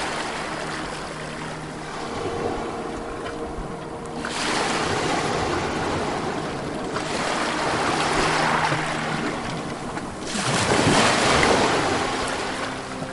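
Ocean waves washing in and drawing back on a shore. One surge comes about four seconds in and a stronger one about ten seconds in.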